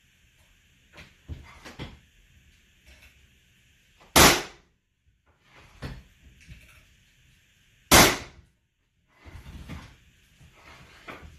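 Pneumatic flooring nailer firing, driving cleats into hardwood floorboards: two loud sharp bangs about four seconds apart, with lighter knocks of boards and tool in between.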